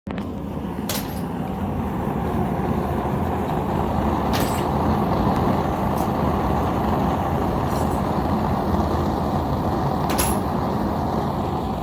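A forge running with a steady low rushing noise, with five short sharp clicks or clinks scattered through.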